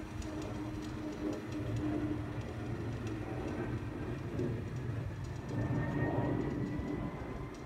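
Jet airliner passing high overhead: a steady low rumble, with a faint rising whine in the last couple of seconds.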